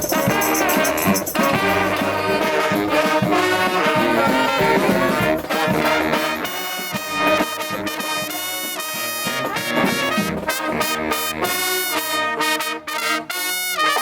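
Street brass band playing a tune, horns over steady percussion hits.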